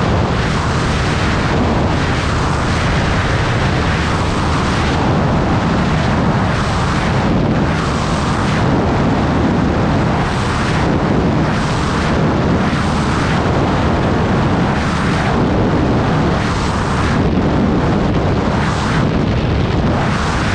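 Heavy wind buffeting on the microphone over a Yamaha NMAX 155 scooter's single-cylinder engine and CRP bolt-on aftermarket exhaust, ridden at a steady road speed. The noise is loud and even throughout.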